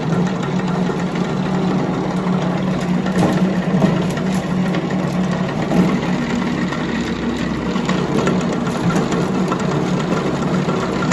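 Powered grain grinder running steadily while milling corn for feed: a steady mechanical hum with many small irregular ticks and rattles over it.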